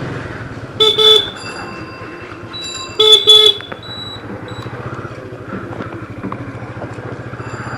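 Vehicle horns honking: two loud short blasts, about a second in and again about three seconds in, with a few fainter toots between, over the steady hum of a running engine on the road.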